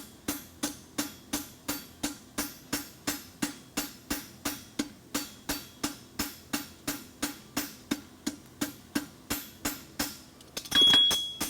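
Farrier's hammer striking steadily at about three blows a second, each with a short ring, as a quarter clip is drawn up from the edge of an aluminum bar shoe on the anvil. One louder, ringing strike comes near the end.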